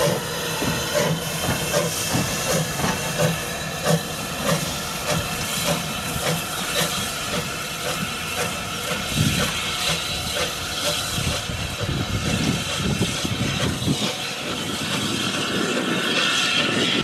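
LSWR T9 class 4-4-0 steam locomotive 30120 pulling away under steam: regular exhaust chuffs over a constant steam hiss.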